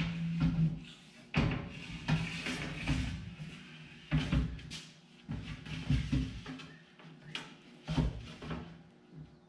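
Plastic sheeting and foil bubble-wrap packaging rustling and crinkling, broken by a string of irregular knocks and thumps as a replacement glass pane is handled out of its box and set into a steel window frame.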